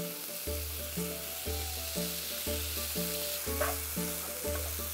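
Chicken pieces, onion and mushrooms sizzling in butter in a nonstick frying pan over a gas flame as they are stirred with a spatula, under background music with a steady beat of about one note a second.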